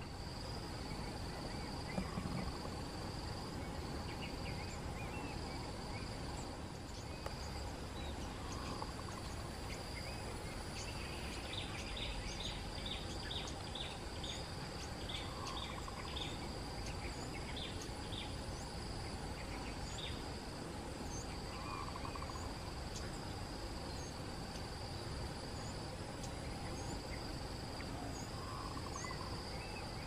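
A steady high insect drone with birds calling over it: scattered faint high chirps, a quick run of about ten sharp high notes in the middle, and a soft low call repeated every few seconds.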